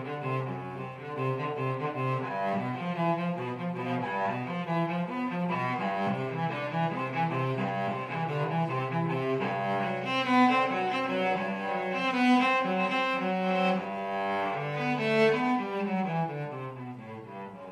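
Solo cello played with the bow, a continuous melody of changing notes that climbs into a higher register in the middle and steps downward near the end.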